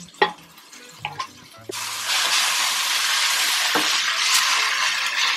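A spatula knocks a few times against the kadai. Then, from just under two seconds in, puréed mustard greens sizzle with a steady hiss as they are stirred into hot oil with frying garlic, onion and chillies.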